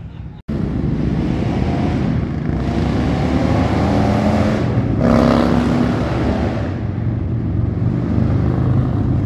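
A steady stream of motorcycles riding past, engines running and revving, with the loudest pass about five seconds in.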